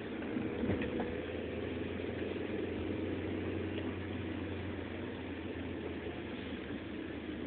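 Steady vehicle engine drone and road noise from a car on the move, with a brief faint knock about a second in.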